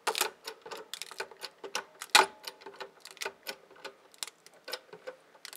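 Bust A Drive crusher pressing a Maxtor hard drive with its 2-ton hydraulic jack: a run of irregular clicks and creaks from the jack and the bending metal drive case, with one louder crack about two seconds in.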